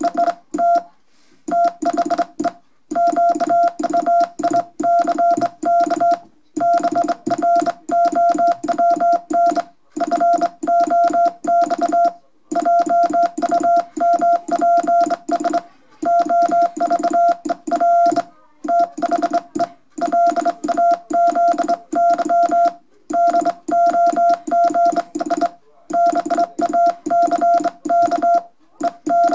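Morse code hand-sent on a Helios straight key: a steady single-pitched sidetone keyed on and off in dots and dashes, with a click at each make and break, in runs separated by short pauses between words.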